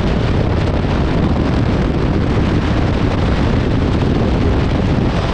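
Wind buffeting the camera microphone: a loud, steady rumbling roar with no break.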